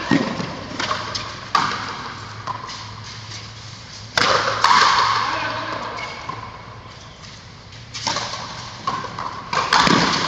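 Frontenis rally: sharp cracks of the ball off the rackets and the concrete frontón wall, echoing under the court roof. There are several hits at the start and a loud one about four seconds in, then a lull before the hits resume near the end.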